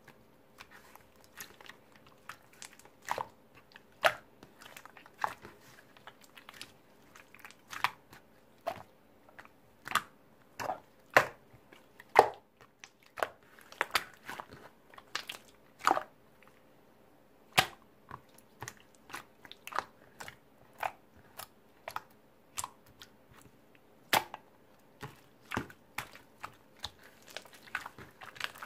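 Slime being pressed, stretched and folded by hand, giving irregular sharp clicking pops, roughly one or two a second, some much louder than others, as trapped air bubbles burst.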